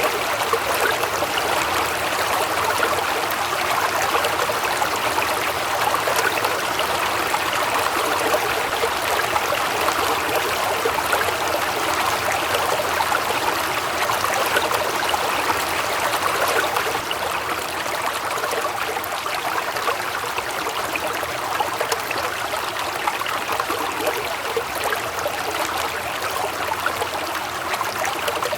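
Waterfall: a steady rush of falling, splashing water, a little softer from just past halfway.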